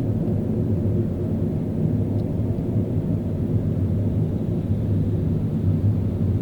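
A car driving on a city street, with a steady low rumble of engine and tyre noise on the road.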